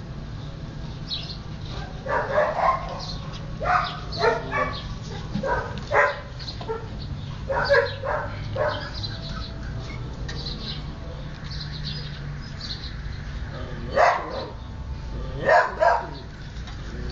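Husky puppies giving short yips and small barks in clusters while they play-fight. The calls stop for several seconds in the middle, and two more come near the end.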